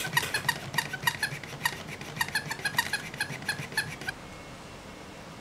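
A rapid run of short, high squeaks, about five a second and unevenly spaced, stopping about four seconds in.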